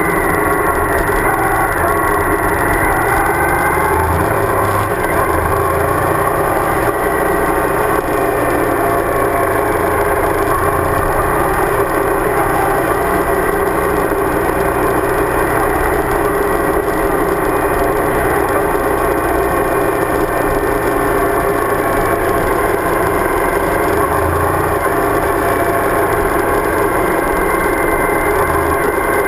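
Suzuki DL1000 V-Strom's V-twin engine running steadily on the move.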